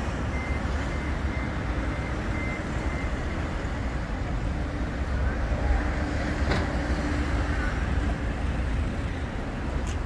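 Steady low outdoor rumble of street and traffic noise around a Bombardier Flexity 2 tram standing or creeping at a stop. A faint steady hum runs through the middle, and a single sharp click comes about six and a half seconds in.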